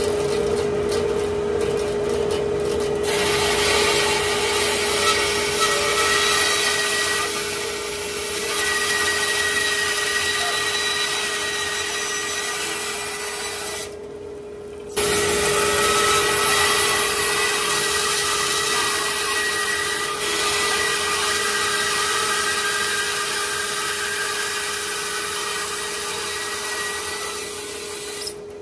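Wood lathe running with a steady hum while a turning tool cuts into the spinning live oak bowl blank, giving a continuous hissing, scraping noise. It breaks off briefly twice, about halfway through and near the end.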